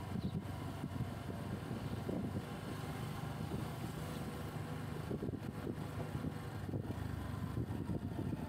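Riding noise from a motorcycle on the road: the engine running steadily under a low, fluttering wind rumble on the microphone.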